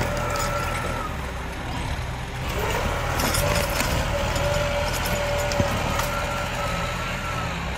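Tractor diesel engine running steadily under load as a three-disc plough cuts through dry soil and roots, with a wavering whine over the engine and scattered small clicks and scrapes.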